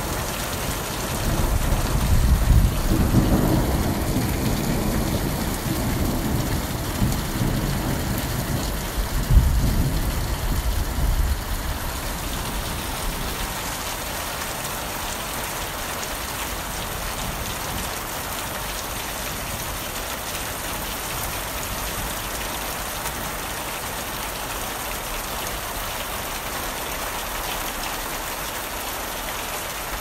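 Heavy rain falling steadily, with a long low roll of thunder over roughly the first twelve seconds. The thunder peaks about two and nine seconds in, then fades into the rain's steady hiss.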